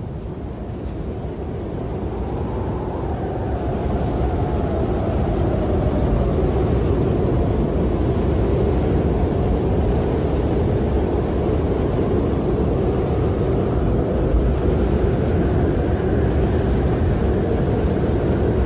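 Snowstorm wind blowing hard: a deep steady rumble with a whistling tone that wavers up and down in pitch, fading in over the first few seconds.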